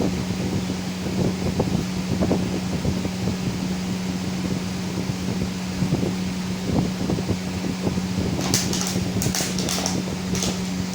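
A plastic bottle being knocked and scraped about, in irregular knocks, with a burst of sharp crackling clicks near the end. A steady hum runs underneath.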